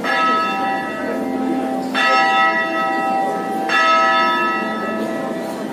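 Church bell tolling for a funeral: three strokes about two seconds apart, each ringing on and slowly fading.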